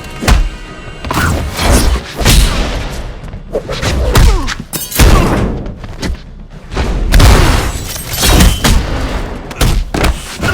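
Designed fight sound effects: a series of heavy punch and body-impact thuds and booms, one after another every second or so, over dramatic music.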